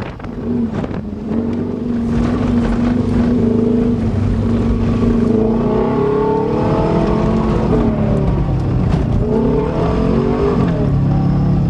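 Subaru Legacy's boxer engine pulling under load while driving through mud. Its note holds steady, then rises and falls with the throttle a few times and settles lower near the end.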